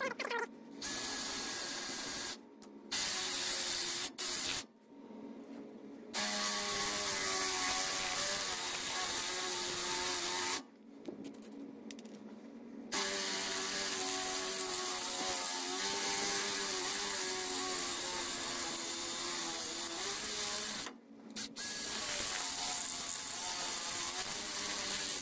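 Cordless DeWalt drill boring a hole into a cast Dana 44 axle housing, the bit working its way up toward a 7/16-inch hole. The drill runs in long runs of several seconds with a few brief stops, its pitch wavering as the bit loads up in the metal.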